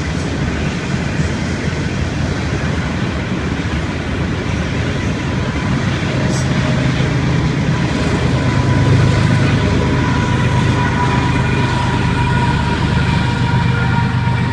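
A train passing with a steady rumble, louder about halfway through. A steady high whine joins about nine seconds in and grows toward the end.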